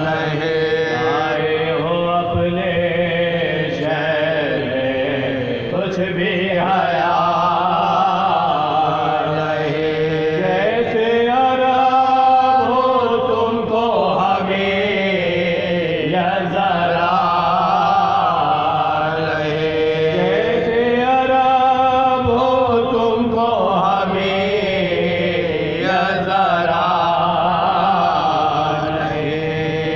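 Soz-khwani: a solo voice chanting a marsiya, a Shia mourning elegy, in long, wavering melodic phrases over a steady low drone.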